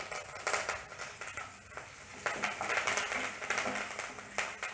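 A ghee tempering of curry leaves, cashews, cumin and black pepper frying in a pan: a steady sizzle dotted with many small crackles as the freshly added curry leaves hit the hot ghee, stirred with a wooden spatula.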